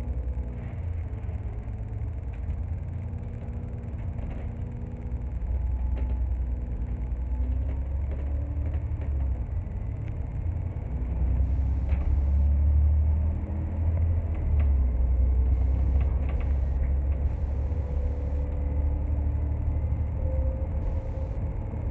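Double-decker bus's diesel engine and drivetrain running, heard from inside the upper deck: a steady low rumble with a faint engine note that rises and falls as the bus pulls along, growing louder about six seconds in and again around halfway.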